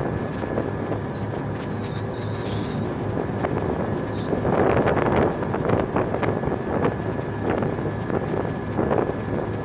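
Boat engine running steadily with a low hum, under wind buffeting the microphone on a moving pilot boat. About halfway through, louder rushing bursts of wind and water come in several times.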